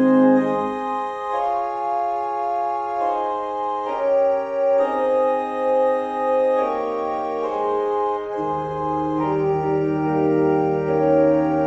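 Organ playing slow, sustained chords that change every second or so. The low bass notes drop out about a second in and come back about two-thirds of the way through.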